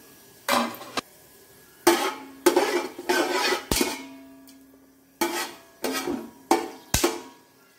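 Metal ladle scraping and knocking against the inside of a metal pot while stirring whole spices in oil. It comes as a string of separate scrapes and clinks, some leaving a brief ringing tone.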